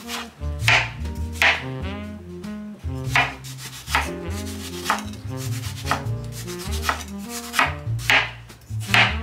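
Chef's knife slicing through cantaloupe and striking a wooden cutting board, a sharp chop about once a second, over jazzy background music with brass.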